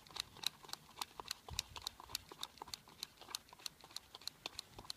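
Worm-chopping scissors snipping quickly inside a bait pot, cutting worms into small pieces. Rapid, even clicks, about four a second.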